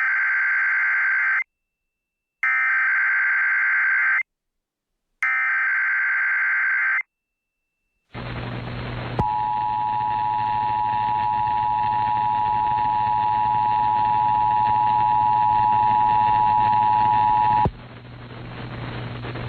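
Emergency Alert System SAME header: three bursts of rapid warbling data tones, each about 1.7 s long and a second apart. After a short stretch of broadcast hiss and hum, the EAS two-tone attention signal (853 and 960 Hz together) sounds steadily for about eight and a half seconds and cuts off abruptly.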